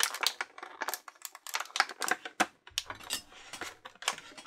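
Irregular clicking and tapping of hard plastic: action-figure accessories and the plastic packaging tray being handled.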